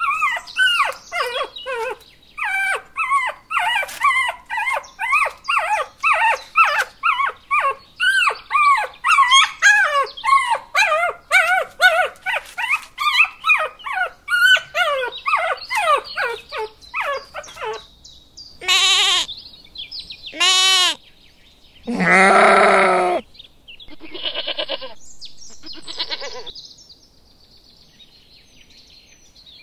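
Puppies whining and yelping over and over, short calls that drop in pitch, two or three a second. After that come a few longer, louder animal calls; the loudest and deepest is about a second long, some 22 seconds in.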